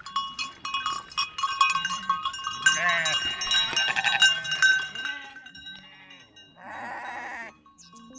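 Livestock bells clanking, with bleating animals calling over them about three seconds in and again near the end.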